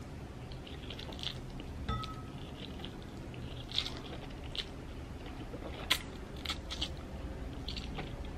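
Close-up mouth sounds of a person eating instant noodles: wet chewing with scattered small clicks and a few sharper ticks.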